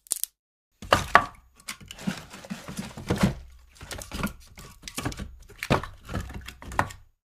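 Fire burning: dense irregular crackling and popping over a low rumble, cutting off abruptly about seven seconds in, with a single sharp snap just before it begins.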